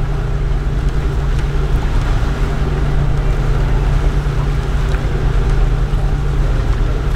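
Catamaran's engine running steadily under motor sailing, a constant low drone, with wind and water noise over it.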